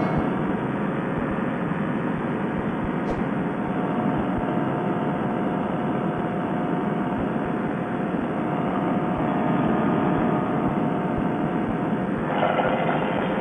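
Fresh Breeze Monster paramotor engine and propeller running steadily in flight just after take-off, a constant dense drone mixed with wind rush. Its note changes near the end, with clearer tones coming through.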